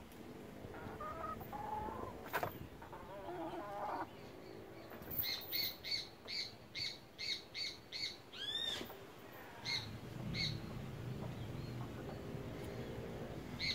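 Hens clucking softly. About five seconds in, a run of evenly spaced high bird chirps begins, a little over two a second, followed by a couple of rising-and-falling calls.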